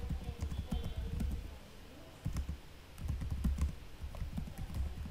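Typing on a computer keyboard: quick runs of keystrokes, with a short pause about two seconds in.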